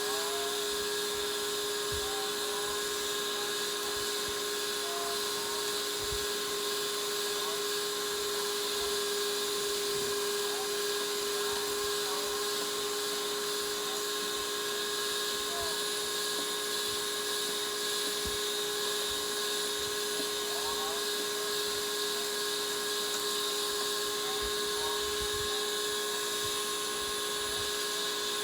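Small electric kitchen-appliance motor running steadily with a constant high whine.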